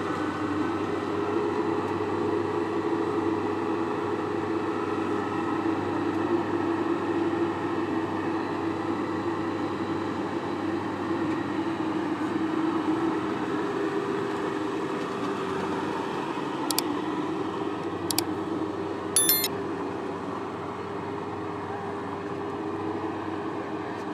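Farm machine engine running steadily, with a few sharp clicks and a brief high squeal about two-thirds of the way in.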